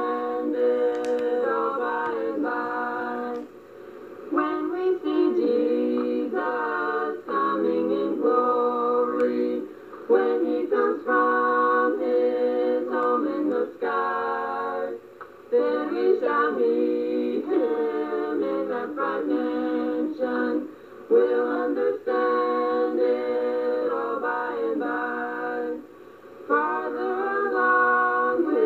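Siblings singing together in harmony, in phrases separated by brief breathing pauses every few seconds. The recording comes from a cassette that has been copied several times.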